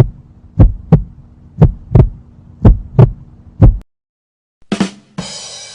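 Heartbeat sound effect: low lub-dub double thumps, about one pair a second, stopping about four seconds in. Near the end come a couple of short clicks and then a hissing noise.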